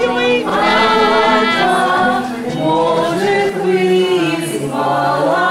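A group of voices singing, with long held notes.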